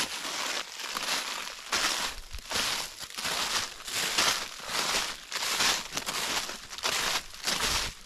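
Footsteps crunching through dry fallen leaves in a steady walking rhythm, about one to two steps a second.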